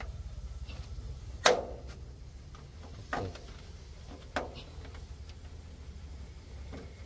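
Three sharp knocks, the first about a second and a half in and the loudest, each ringing briefly. Under them an engine runs steadily with a low hum.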